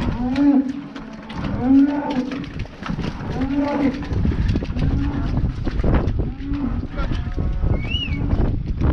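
Cattle mooing: five short moos, about a second and a half apart, then a higher call near the end.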